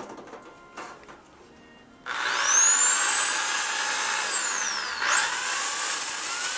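Corded Bosch electric drill spinning a stainless steel screw mixer paddle in the air, after a few faint clicks. About two seconds in the motor starts and its whine rises to a high, steady speed. It winds down briefly near the middle, then speeds up again under the variable-speed trigger.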